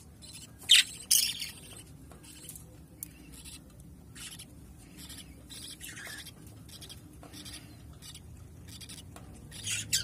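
Young budgerigars in a nest box calling: many short, scratchy chirps throughout, with loud squawks about a second in and again near the end.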